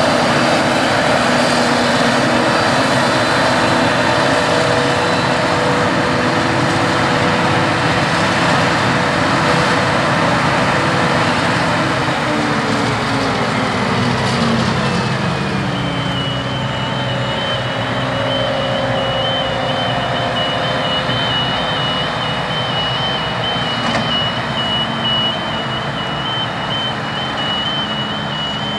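Claas Jaguar 870 forage harvester chopping maize, with a tractor alongside: a loud, steady drone of engines and chopper. About twelve seconds in, the engine notes fall in pitch as the machines slow and pull apart, and from about sixteen seconds a reversing alarm beeps steadily over the engine noise.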